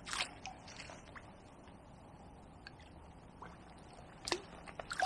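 Faint, scattered splashes and drips of water from a landing net being handled at a lake margin, with a slightly louder splash just after four seconds in.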